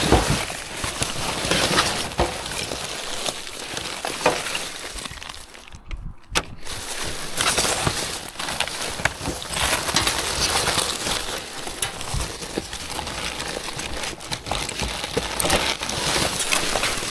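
Gloved hands rummaging through rubbish in a wheelie bin: plastic film and packaging crinkling and rustling, with many small knocks, dipping quieter for a moment about six seconds in.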